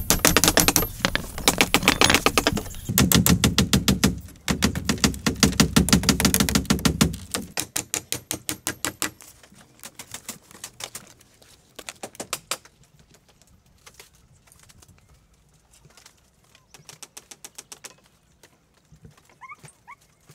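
A fast, even run of sharp taps or knocks, loud for the first seven seconds or so, then much fainter and more broken.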